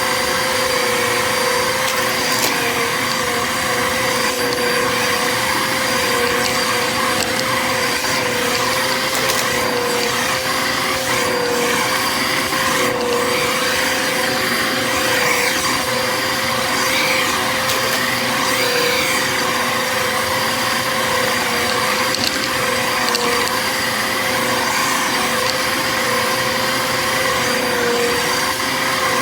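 Bissell vacuum cleaner running steadily, its motor whine holding one pitch with a slight wobble. A few faint sharp clicks come about midway.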